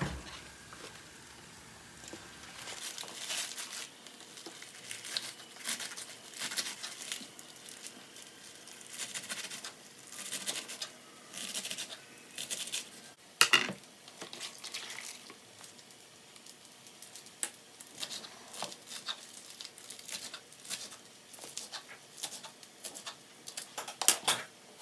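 Kitchen knife chopping fresh spinach on a wooden cutting board: irregular runs of crisp chops through the leaves and rustling of the leaves, with one louder knock of the knife on the board about halfway through.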